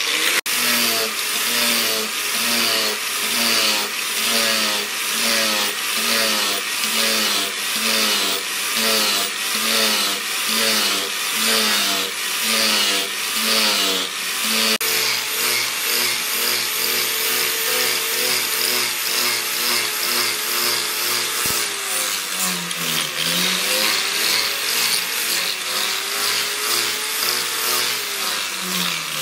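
Electric angle grinder with a sanding disc grinding the steel of an axe head forged from a leaf spring. For the first half its whine dips in a regular rhythm, about three times every two seconds, as it bears on the metal. After that it runs steadier, sagging lower in pitch a couple of times under heavier pressure.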